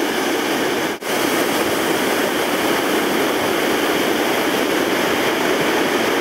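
Steady rushing of the Merced River's white water pouring over granite boulders, with a brief break about a second in.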